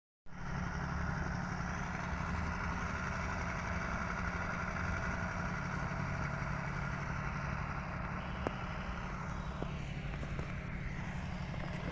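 An engine running steadily with a constant low hum, with one brief click about eight and a half seconds in.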